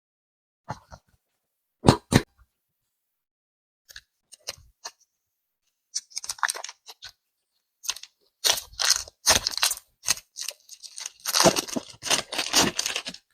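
Crinkling, crackling and tearing of the clay's plastic packaging being handled and opened. There are a few isolated crackles first, then denser bouts from about six seconds in.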